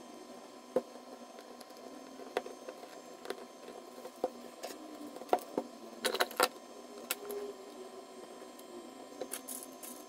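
Scattered small clicks and taps of electronic parts and wires being handled and pushed into a plastic breadboard, with a quick cluster of rattling clicks about six seconds in.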